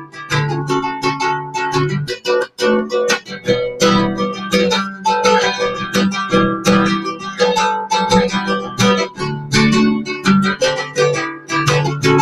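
Instrumental break in a song: guitar chords strummed in a steady rhythm, with no singing.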